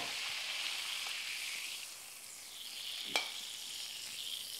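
Duck fat sizzling in a hot pan, a steady hiss that eases about two seconds in and then picks up again. A single sharp clink about three seconds in.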